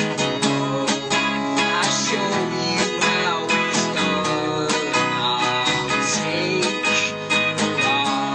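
Live band playing: a strummed acoustic guitar with electric bass and electric guitar, and a man singing.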